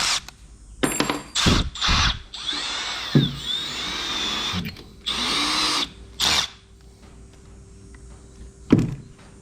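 Power drill boring a hole into a cracked cast-iron engine block, the first hole of a thread-in crack repair. It runs in several short bursts and one longer run of about two seconds whose motor pitch sweeps up and down.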